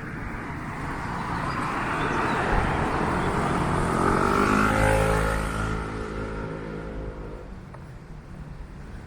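A motor vehicle passes by in city traffic: its tyre and engine noise builds to loudest about five seconds in, then fades away.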